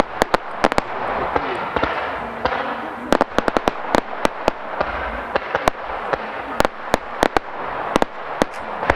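Aerial fireworks going off: a rapid, irregular run of sharp cracks and bangs, bunched in quick clusters, over a continuous hissing, crackling background.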